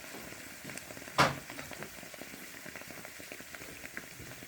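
Heated excavator hydraulic part sizzling and crackling as it cools, like onions in a hot pan of olive oil, with one sharp pop about a second in.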